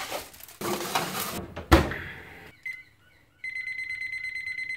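Handling noise with a sharp knock, then a handheld digital kitchen timer beeping: a few faint key chirps as its buttons are pressed, then a steady high-pitched, rapidly pulsing electronic beep that starts a little past halfway and lasts about two seconds.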